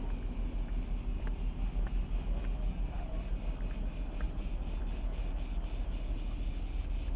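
A chorus of cicadas: a steady, high-pitched insect drone that pulses several times a second, over a low rumble.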